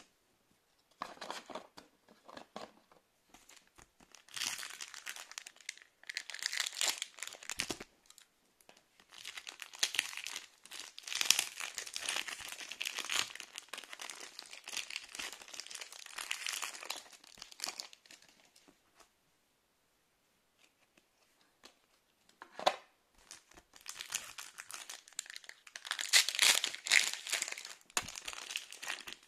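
Foil wrappers of Pokémon card booster packs crinkling as they are handled and torn open. The crinkling comes in stretches of a few seconds, with a pause of a few seconds about two-thirds of the way through.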